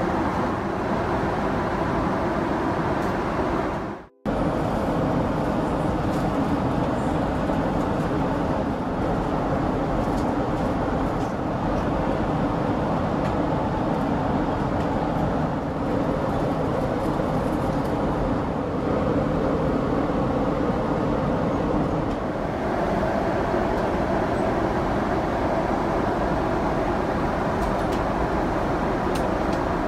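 Steady cabin noise of a Boeing 777-300ER airliner, an even rush of engine and air noise. It drops out for an instant about four seconds in.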